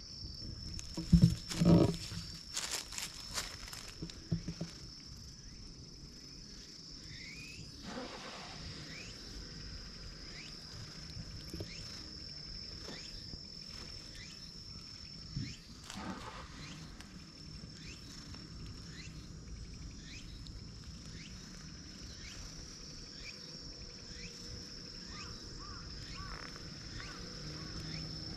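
A steady high-pitched insect drone, with a stray cat rubbing against the camera close to the microphone: loud bumps and rustling about one to two seconds in, and another bump about halfway through.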